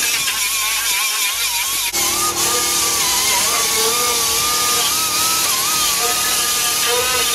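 Pneumatic die grinder with a small abrasive disc running against rusty sheet metal: a steady airy grinding with a whine that wavers in pitch as the load changes, getting fuller about two seconds in.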